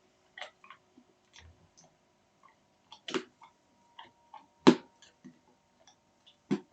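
A series of irregular sharp clicks and taps, the loudest about two-thirds of the way in, over a faint steady hum.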